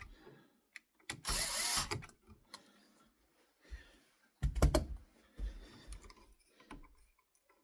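Mounting screws being backed out of a wall toggle switch with a screwdriver: three short bursts of mechanical ratcheting, about a second and a half in and again near the middle, with small clicks between them.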